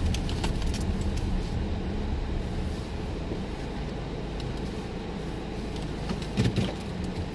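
Car running, heard from inside the cabin: a steady low engine and road rumble, with a few light clicks and a short knock about six and a half seconds in.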